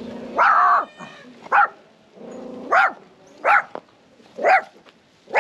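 Small dog barking repeatedly, about six barks roughly a second apart, the first one a little longer.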